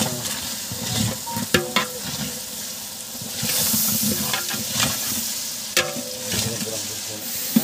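Sliced onions frying in oil and ghee in a large metal pot, sizzling while a long-handled spoon stirs them, with a few sharp knocks of the spoon against the pot. The hiss swells about halfway through. The onions are browned to a reddish gold.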